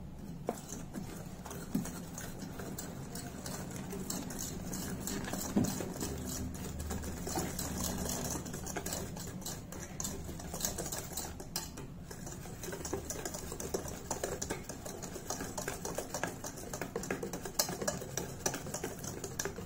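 Wire whisk beating wet chocolate cake batter in a stainless steel bowl, the wires ticking and scraping rapidly against the bowl.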